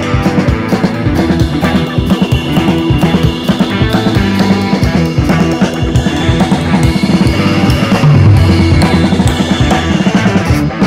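Upbeat rock-style background music with a steady drum-kit beat, bass drum and snare.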